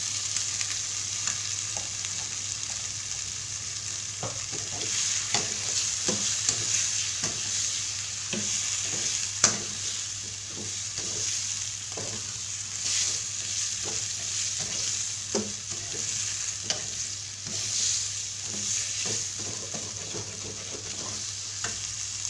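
Blended chilli paste, fried in oil until crisp, sizzling in a metal wok as pineapple chunks are stirred through it. A metal spatula scrapes and knocks against the pan, with one sharp clink about nine and a half seconds in.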